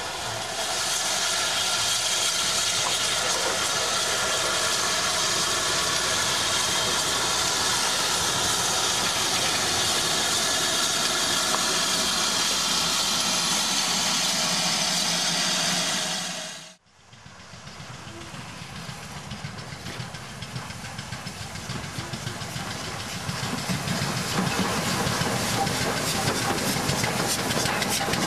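Steam locomotive giving off a loud, steady hiss of escaping steam, which cuts off suddenly about two-thirds of the way through. A quieter steam-hauled train follows, growing louder as it runs past.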